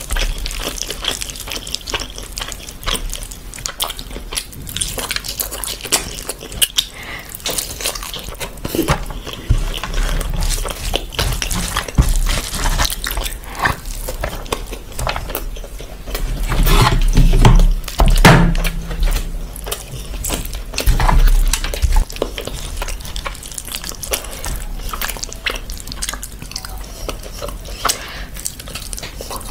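Close-miked eating by hand: wet clicks and smacks of fingers working through rice and mutton, with biting and chewing. A louder stretch comes about halfway through.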